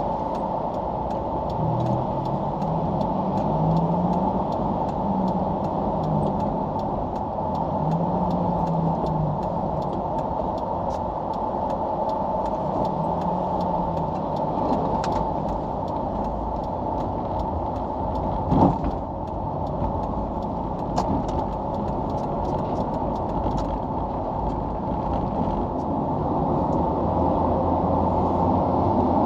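Car driving in traffic, heard from inside the cabin: a steady low engine and road rumble, with a single sharp knock about two-thirds of the way through.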